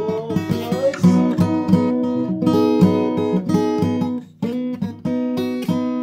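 Acoustic guitar strumming chords in a steady rhythm, with a brief pause about four seconds in.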